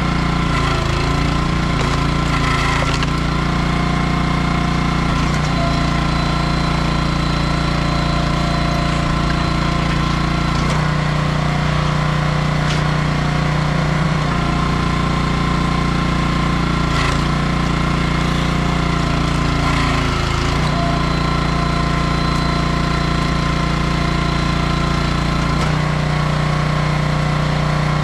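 Small gas engine of a 27-ton hydraulic log splitter running steadily. Its note shifts briefly about every five seconds as the splitter works.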